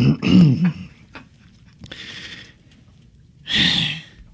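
A brief bit of a man's voice at the start, then quiet room tone with a short breathy sound near the end.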